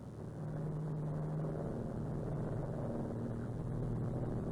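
Steady drone of a Douglas Dakota's twin radial piston engines and propellers, heard from inside the cabin in flight: an even low hum with a constant rushing noise over it.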